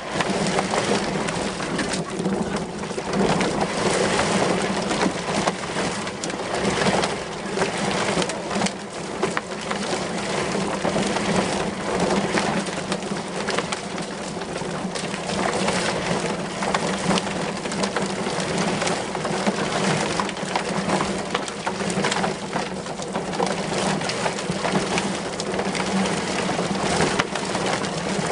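Whizbang tub-style chicken plucker running with a steady motor hum, while the chicken carcasses tumble against its rubber plucking fingers in a dense clatter of many small slaps as the feathers are stripped off.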